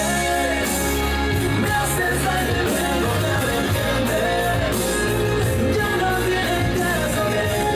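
Music: a song with a singing voice over a band and a steady bass line.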